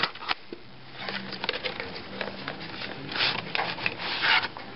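Packaging being opened and handled, with rustling and rubbing. There are a couple of sharp clicks at the start and louder rustles about three seconds in and again near the end.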